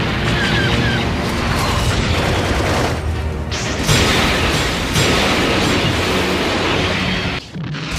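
Mecha anime battle soundtrack: music mixed with mechanical sound effects and booms, with a short drop in level near the end.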